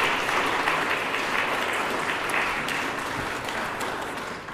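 An audience applauding at the close of a talk, a dense patter of many hands clapping that starts to die away near the end.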